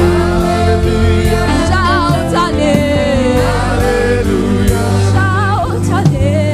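Gospel choir singing a worship song with vibrato-laden lead vocals over a steady bass and band accompaniment.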